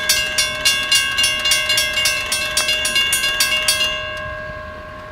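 Railroad bell ringing rapidly, about three to four strikes a second. The strikes stop about four seconds in and the ring fades away.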